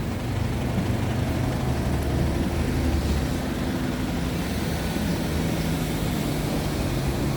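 Steady low engine rumble with a droning hum, like a nearby motor vehicle running.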